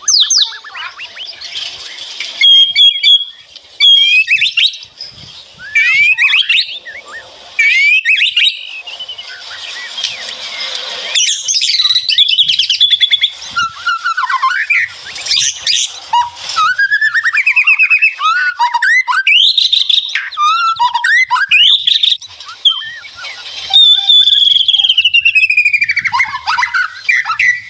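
White-rumped shama singing a long, varied song: clear whistles and slurred glides, fast trilled runs, and harsh rattling 'kretek' notes. Near the end comes a long whistle falling steadily in pitch.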